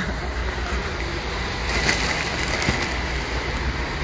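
Steady low rumble of a moving vehicle heard from inside, with a short spell of rattling and clicking about two seconds in.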